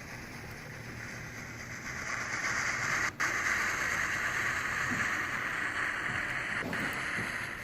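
A T20 steam locomotive sound decoder playing a steady steam hiss, which swells about two seconds in and breaks off briefly just after three seconds.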